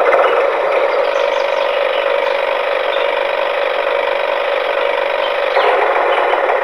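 Small geared electric motor of a homemade toy tractor running, a steady mechanical whir as the tractor drives.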